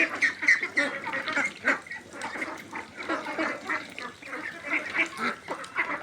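A flock of young ducks quacking and calling over one another: many short, overlapping calls packed close together, a little busier in the first second.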